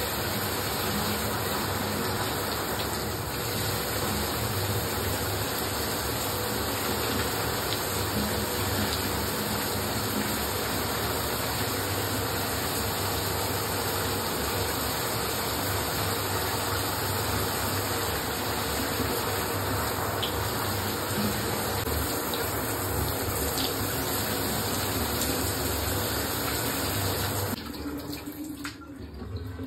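Water running steadily in a bathroom, shut off abruptly near the end.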